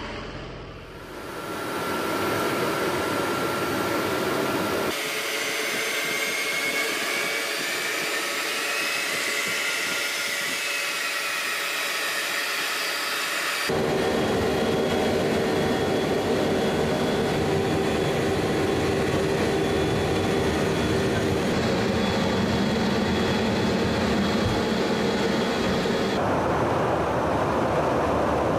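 Jet engines of a KC-135 Stratotanker heard from inside the aircraft: a steady rushing noise with whining tones. The pitch and balance change abruptly several times.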